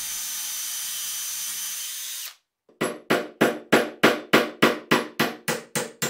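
Electric drill running steadily, boring into steel, cut off abruptly after about two seconds. After a short gap comes a quick, even run of light hammer taps on a metal nail pin, about four to five a second, each ringing briefly.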